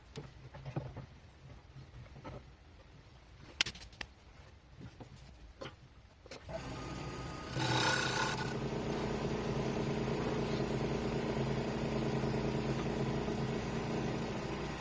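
A few light clicks and knocks, then a wood lathe's electric motor starts about six seconds in and runs steadily with a hum. About a second after it starts there is a brief, louder rush of noise.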